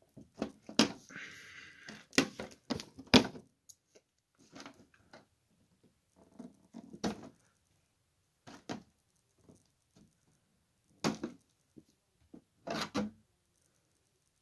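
Scattered clicks, taps and light knocks as the hard plastic body shell of an RC Jeep crawler is handled, unclipped and lifted off its chassis, with a brief rustle about a second in.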